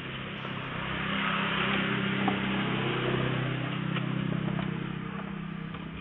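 A motor vehicle's engine running steadily, growing louder from about a second in and easing off again toward the end.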